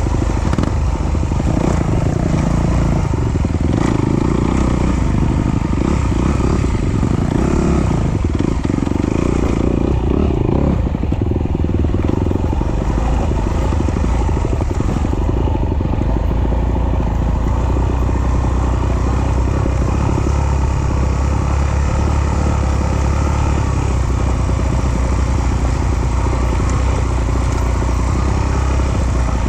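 Off-road trail motorcycle engine running continuously as the bike is ridden. The engine works harder for roughly the first ten seconds, then settles to a steadier, lower note.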